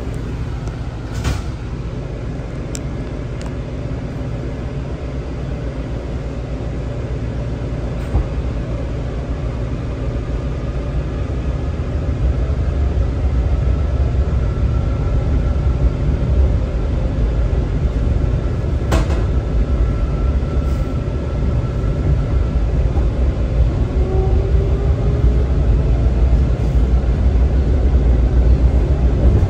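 A WMATA 7000-series Metro railcar running between stations, heard from inside: a steady low rumble of wheels on rail that grows louder about halfway through. A faint steady whine comes in the middle, and a few sharp clicks sound.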